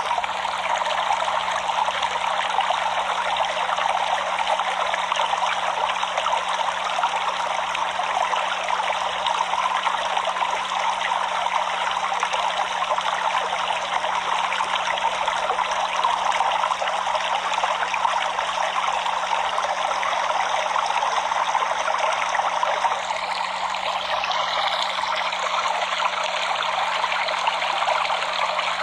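Stream water flowing and trickling steadily over stones, an even rushing babble with no break.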